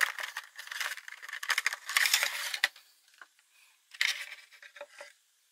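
Clear plastic packaging insert and cardboard box crinkling and crackling as hands open the box and slide the vinyl figure out, with a dense stretch of crinkling for the first two and a half seconds and another burst about four seconds in.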